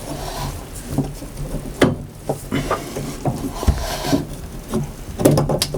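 Work handling noise: scattered sharp knocks and clicks, a few close together near the end, with rubbing and scraping in between.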